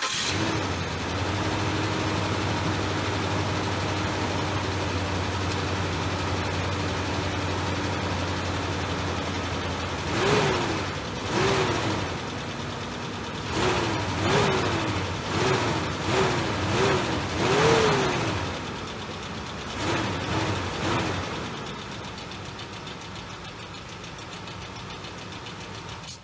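2005 Ford F-150's 5.4-litre Triton V8 running just after a start: a steady fast idle, then revved in about ten short blips between about ten and twenty-one seconds in, then settling to a quieter idle. The engine knocks, and the owner says the motor is gone.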